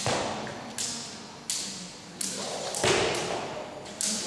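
A jump rope slaps a hard sports-hall floor again and again at an uneven pace, roughly once or twice a second, with the skipper's feet landing. A heavier thud of both feet comes about three seconds in, and each hit echoes briefly in the large hall.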